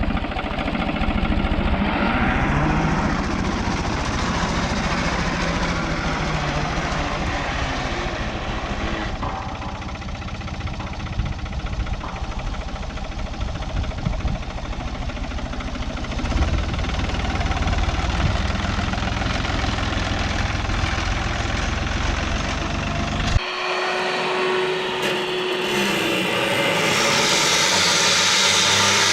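Engine running steadily. About 23 seconds in the sound changes abruptly to a steady hum, and a hissing sound rises near the end.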